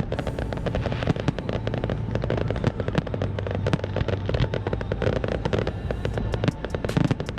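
Fireworks crackling in a rapid, unbroken string of sharp pops, many a second, over a steady low hum.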